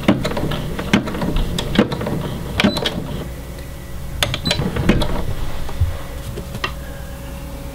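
Irregular clicks and knocks from a Brother SE600 computerized embroidery machine and hands working at its hoop and thread, then a faint steady hum in the last couple of seconds.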